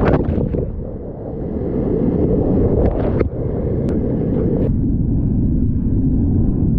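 Whitewater rapid rushing and churning right at a kayaker's action-camera microphone, a loud low rumble with wind buffeting, broken by several sharp splashes as the boat and paddle punch through the waves.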